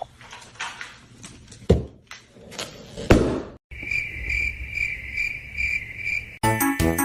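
A few knocks and clatters, then crickets chirring in a steady pulsing trill for about three seconds, cut off by music starting near the end.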